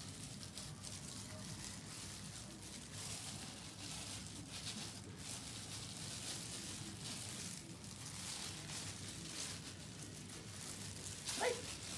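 A steady faint hiss, with a few soft handling noises as plastic-gloved hands press boiled eggs into meat filling on a raw deboned chicken in a metal tray.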